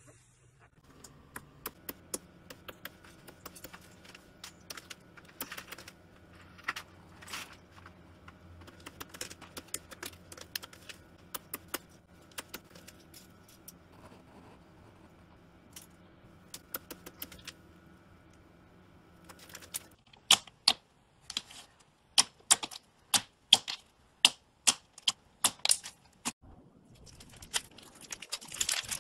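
Slime being stretched, poked and pressed by hand, giving off many small clicks and pops. About two-thirds of the way through the pops turn louder and sharper and come in quick series, and a brief burst of crackling follows near the end.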